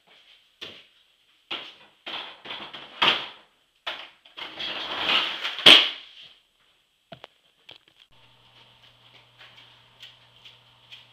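Skateboard on a kitchen floor: a run of knocks and clacks, then the wheels rolling for a couple of seconds, ending in a loud sharp clack about two-thirds of the way through.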